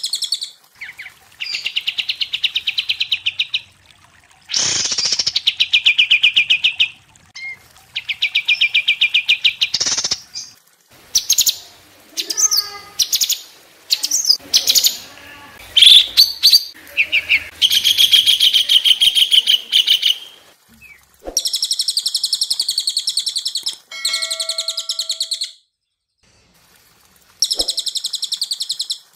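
Songbird song from the cililin, kapas tembak and cucak cungkok mix: repeated bouts of fast, rattling trills, each about two seconds long with short pauses between. In the middle comes a more varied run of whistles, slurred glides and sharp chips.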